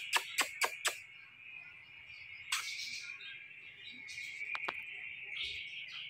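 Quick run of kissing smacks, about four a second, that stops about a second in. After it come a faint steady high whine and a few soft clicks.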